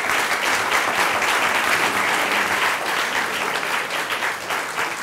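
Audience applauding, a sustained round of clapping from a seated crowd that tails off near the end.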